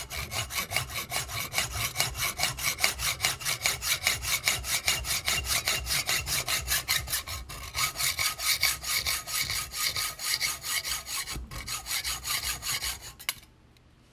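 Hacksaw cutting through a flat steel spring bar clamped in a vise, in quick even strokes about four a second. The sawing stops about a second before the end, once the piece is cut off.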